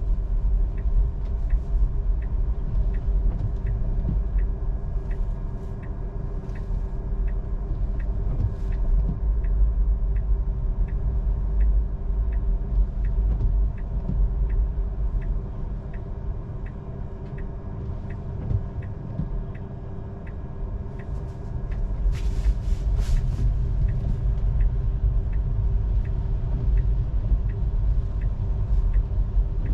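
Tesla cabin with steady low road and tyre rumble, and the turn signal ticking evenly at about two clicks a second. A brief rush of hiss comes about three quarters of the way through.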